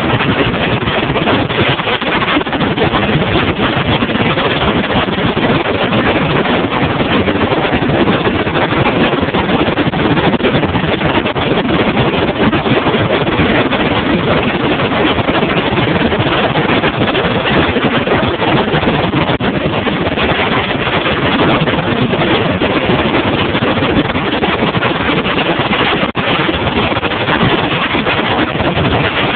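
Bass boat under way at speed, its outboard motor running steadily: a loud, even rushing drone with no letup.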